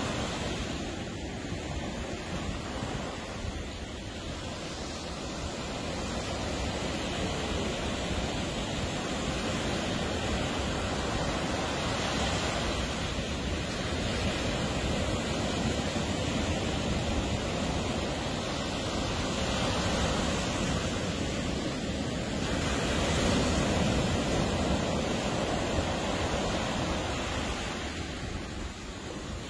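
Ocean surf washing onto a beach: a steady rush of breaking waves that swells and eases slowly, loudest a little past two-thirds of the way through.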